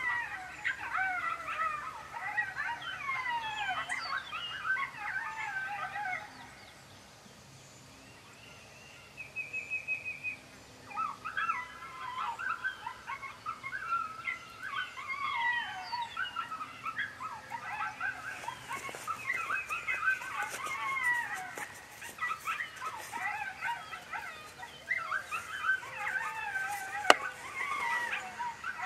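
Coyote pup howls and yips, many high wavering calls overlapping and sliding down in pitch. They stop for a few seconds after about six seconds, when only a short high trill is heard, then start again and carry on. A single sharp click comes near the end.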